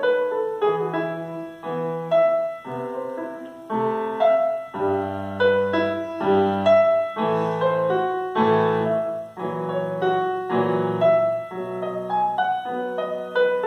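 Grand piano played solo: a melody over struck chords, each ringing and fading, with low bass notes joining about five seconds in and dropping out again near the end.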